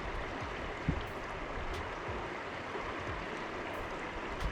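Steady rush of flowing river water, with a brief low thump about a second in.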